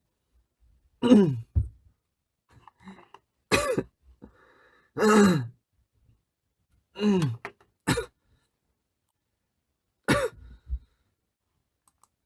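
A young man coughing repeatedly, about seven separate coughs in small clusters, several trailing off with a falling sound of the voice. It is a lingering cough left after a cold that has otherwise cleared.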